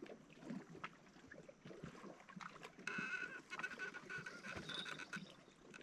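A faint animal call at night: one drawn-out, even call lasting about two and a half seconds, starting about halfway through, over faint scattered clicks.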